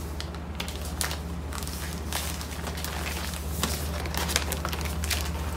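Plastic packaging bag and paper crinkling and rustling as they are handled, in many small irregular crackles, over a steady low hum.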